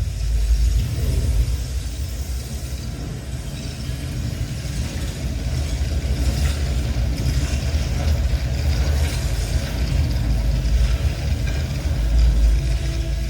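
Deep electronic synthesizer drone: a very low, steady bass tone with fainter held tones above it.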